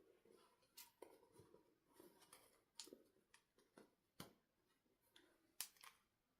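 Near silence with faint light rustling and a few small sharp clicks scattered through, the clearest about a second in, near the middle and about two thirds of the way through.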